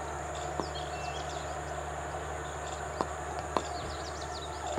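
Steady outdoor background noise with faint high chirps and three sharp clicks: one early, then two about half a second apart past the middle.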